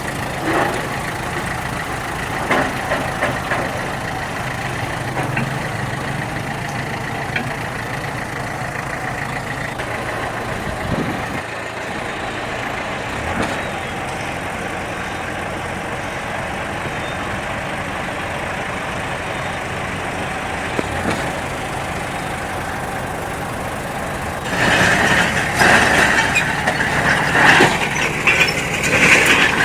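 Diesel engine of heavy earthmoving machinery running steadily, with a few light knocks. Near the end a louder, irregular rattling sets in over the engine.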